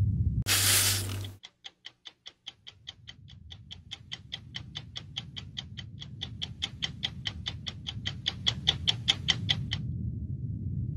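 A brief burst of hiss, then rapid, even ticking, about seven ticks a second, that grows louder and stops suddenly near the end, over a low steady drone.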